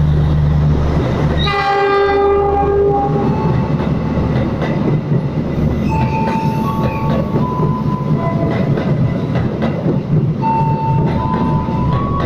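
A long-distance passenger train's stainless-steel coaches rolling past at speed, with a steady rumble and wheels clattering over the rail joints. The locomotive's horn sounds once, about a second and a half in, for about a second and a half. In the second half, thin high tones come and go, changing pitch in steps.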